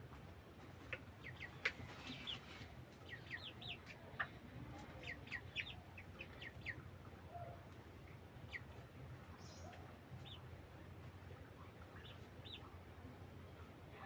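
Broiler chickens peeping and clucking softly, with many short high peeps in the first half that thin out later, over a faint low hum.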